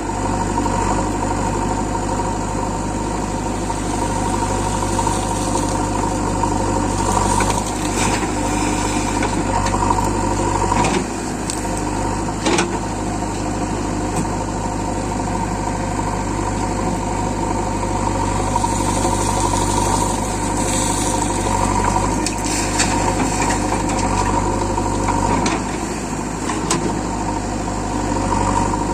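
Diesel engine of a JCB 3DX backhoe loader running steadily while it loads sand, with a few sharp knocks and clanks about 8, 11, 12 and 22 seconds in.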